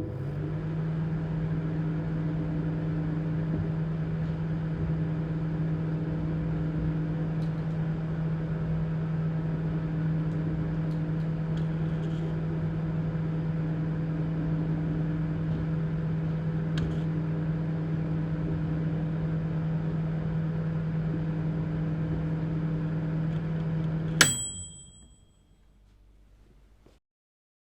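Microwave oven running close up: a steady electrical hum. About 24 seconds in it stops with a sharp click and a short ringing ding that fades quickly, marking the end of the heating cycle.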